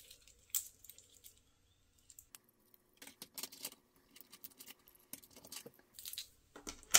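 Faint clicking and clinking of steel watch bracelet links as the bracelets are handled, with one sharper click about half a second in and a run of quick small clicks in the second half.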